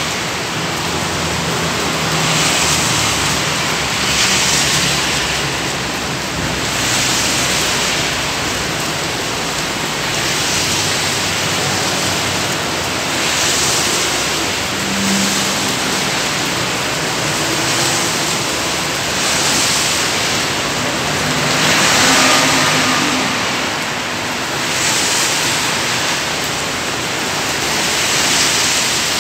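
Heavy rain with road traffic: wet tyres hissing past and vehicle engines running, the hiss swelling every two to three seconds.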